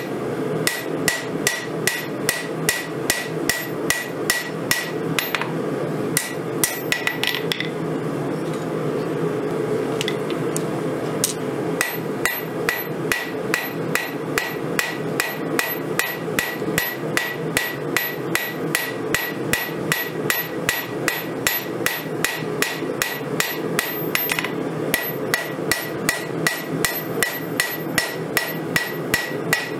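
Hand hammer striking a red-hot steel knife blade on a 132-pound Vevor steel anvil, about two and a half blows a second, each with a bright ring from the anvil. The blows break off to a few scattered strikes for about six seconds early on, then resume steadily, with a brief pause again near the end. A steady hum runs underneath.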